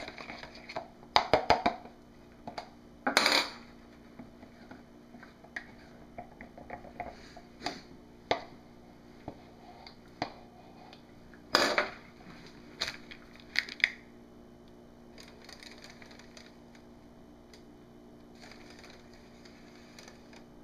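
Spoons and plastic pitchers of soap batter being handled: scattered clicks and knocks, with louder clattering knocks about three seconds in and again near twelve seconds, over a faint steady hum.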